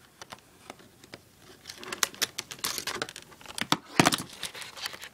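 A cube's packaging box being worked open by hand: crinkling and small clicks, sparse at first and busier after about two seconds, with a sharp crack about four seconds in.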